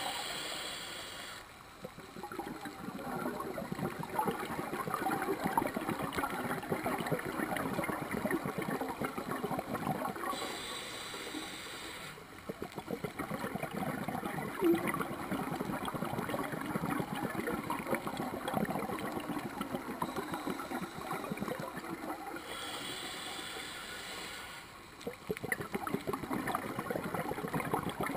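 A scuba diver breathing through a regulator: a hissing inhalation three times, at the start, about 10 s in and about 23 s in, with long gurgling streams of exhaled bubbles between.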